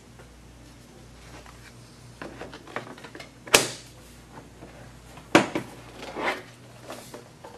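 Laptop hard-drive bay cover being fitted on the underside of the machine: a few light plastic clicks, then one sharp snap about halfway through as it seats. A second hard knock a couple of seconds later as the laptop is lifted and turned over on the desk, followed by softer rubbing.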